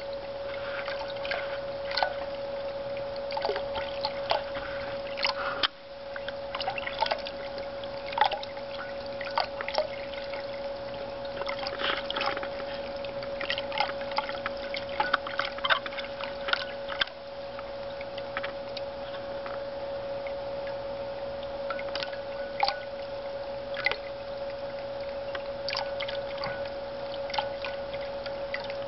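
A ceramic cat drinking fountain's stream trickling into its water-filled bowl while a cat laps at it, making frequent small splashes and drips. A steady hum runs underneath.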